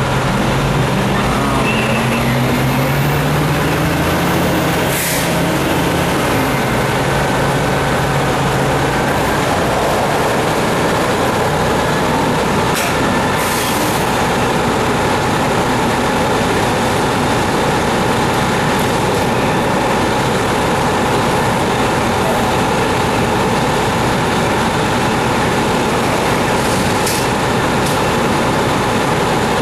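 Fire trucks' heavy diesel engines running steadily, a loud constant drone with a steady whine through it. In the first few seconds a lower engine note rises in pitch, then drops away.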